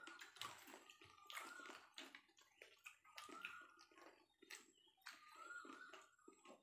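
Faint wet slurping, sucking and chewing of people eating a boiled dish with their hands, in a quick irregular series of small smacks and clicks.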